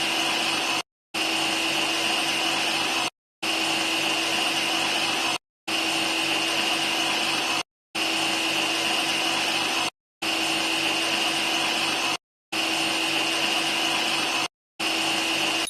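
Simulated horizontal bandsaw running sound effect, a steady machine noise with a high whine, played as a loop: about two-second stretches separated by short silent gaps. It cuts off suddenly at the end.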